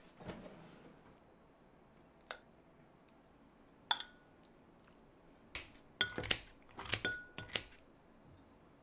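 Kitchen tongs and utensils clinking against a small glass bowl as yeolmu kimchi is put into it. There are single clinks about two and four seconds in, then a quick run of louder clinks near the end, some ringing briefly like glass.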